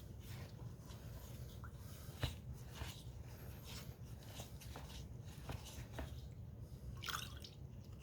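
Small concrete pots being handled and dipped in sealer: scattered light clicks and taps, a sharper knock about two seconds in, and a brief wet rustle near the end, over a low steady hum.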